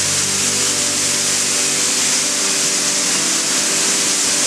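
Water jets of an automatic motorcycle wash booth spraying over a motorcycle: a steady hiss.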